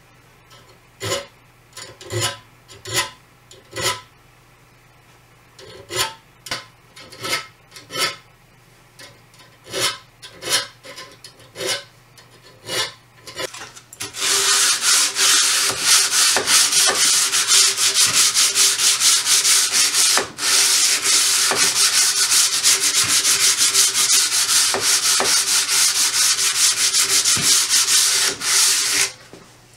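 Steel bow saw blade being worked by hand: first short, separate scraping strokes along the teeth in small bursts. Then, about halfway, a block is rubbed rapidly back and forth along the rusty blade, making a loud continuous rubbing and sanding noise with one brief break, that stops shortly before the end.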